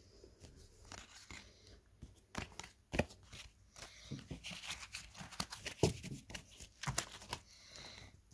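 Pokémon trading cards handled by hand: cards sliding, flicking and tapping together as they are gathered into a pile. The sounds are faint and scattered, the sharpest clicks about three seconds in and again near six and seven seconds.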